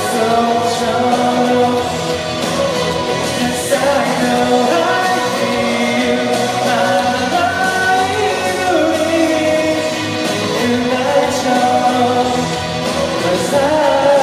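A male singer singing live into a handheld microphone over accompanying music.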